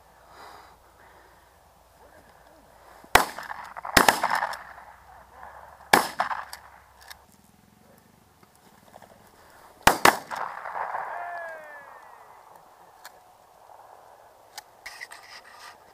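12-gauge shotgun shots fired at flushed pheasants: about five sharp reports, each trailing off in an echo. Two come a second apart, another two seconds later, then a quick pair about four seconds after that.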